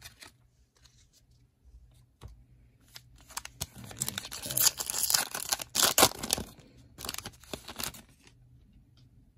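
Foil wrapper of a 2021 Panini Prestige football card pack being torn open and crinkled by hand: a crackling rustle that starts about three seconds in, is loudest around the middle, and stops about eight seconds in.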